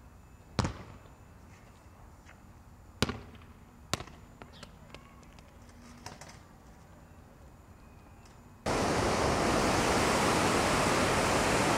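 A leather American football bouncing on concrete: three sharp slaps, the first about half a second in and two more about three and four seconds in, then a few fainter taps. Near the end a loud, steady rushing hiss cuts in suddenly.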